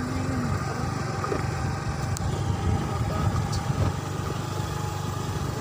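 Small motorcycle engine running steadily as the bike rides along.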